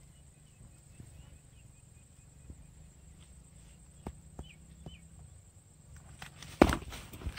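Small clicks and rustles of a silver carp being unhooked by hand, over faint bird chirps. A loud, brief rustling thump comes about six and a half seconds in, and a smaller one just before the end.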